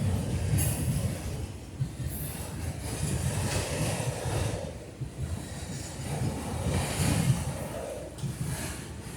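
Norfolk Southern freight train rolling past: a low rumble of steel wheels on rail that swells and fades unevenly, with faint high wheel noise over it.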